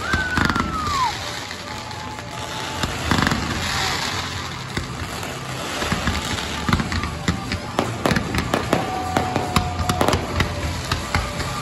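Aerial fireworks bursting overhead: a run of bangs and crackling, thickening into dense, rapid crackle in the second half. A falling whistle sounds near the start.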